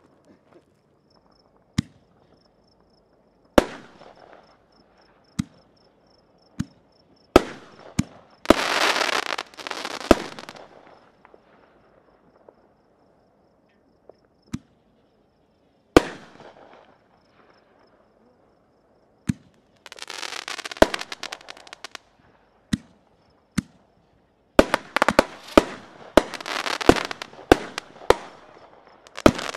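Aerial fireworks shells bursting in sharp bangs, spaced a few seconds apart at first and coming in rapid succession near the end. Some bursts are followed by a second or two of dense hiss.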